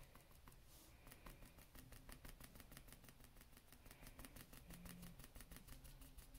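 Faint, quick tapping of a paintbrush dabbing paint onto a canvas, several light taps a second, starting about a second in.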